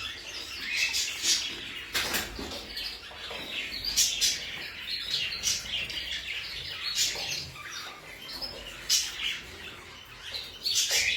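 Many caged canaries chirping and calling, with short, scattered high calls overlapping each other, and now and then a sharp click.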